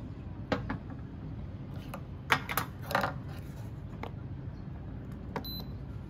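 Scattered clicks and clatters of pour-over coffee gear being handled, about half a dozen knocks with the loudest cluster two to three seconds in, over a steady low hum.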